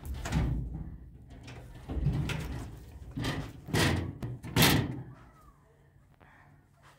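Wooden glazed double doors being pushed open, with a handful of bangs and rattles over the first five seconds, then quiet.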